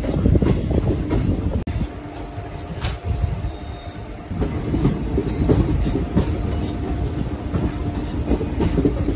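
Indian Railways express train running along the track: a steady low rumble with irregular wheel clatter over the rail joints. A faint steady hum comes in a couple of seconds in.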